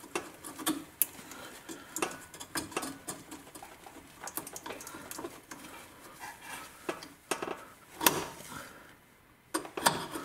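Irregular metallic clinks, taps and light scraping of hand work on a car's exhaust system as a failed rubber exhaust hanger bushing is cut away with a knife, with one louder knock near the end.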